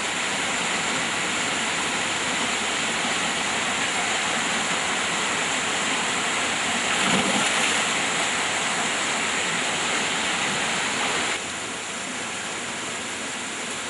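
Steady rush of flowing river water. It swells briefly about seven seconds in and drops a little in level near the end.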